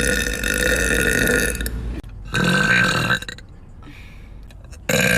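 A person burping loudly: one long, drawn-out burp with a steady pitch that ends about two seconds in, a shorter burp just after, and another starting near the end.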